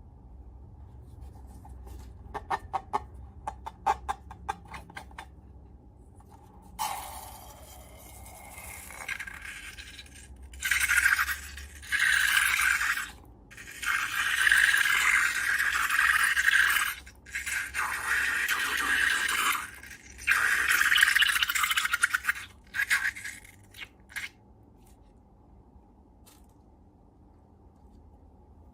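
Slime-making handling sounds: a run of light clicks and taps, then several long bursts of hissy scraping noise, each a second or more long, before it goes quiet.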